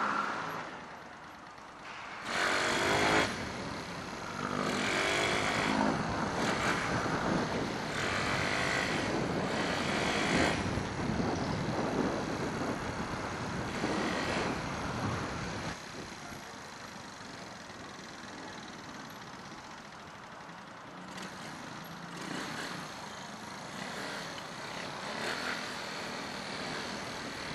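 Motorcycle riding through city traffic: its engine mixed with passing trucks and cars. A short loud sound comes about two seconds in, the noise stays louder until about sixteen seconds in, then settles to a quieter steady hum.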